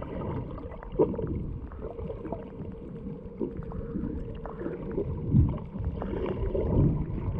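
Muffled underwater sound from an action camera held just below the surface: water sloshing and gurgling with scattered small clicks and a faint steady hum, swelling briefly about five seconds in.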